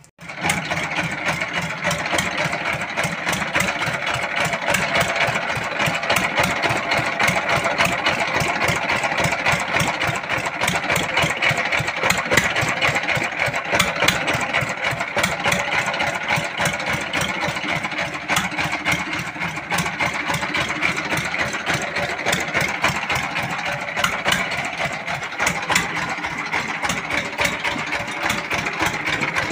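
Single-cylinder S1115 horizontal diesel engine running steadily, a rapid, even knocking beat with mechanical clatter.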